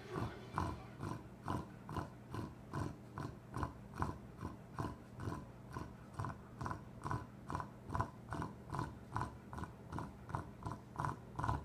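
A dog snoring in quick, even puffs, about two a second, stopping near the end.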